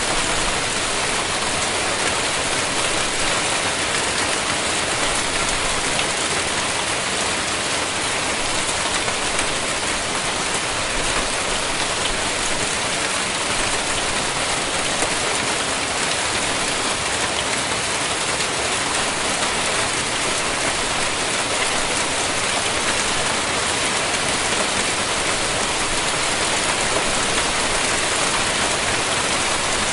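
Hailstorm: hailstones pelting down in a dense, steady patter of countless small impacts, without letup.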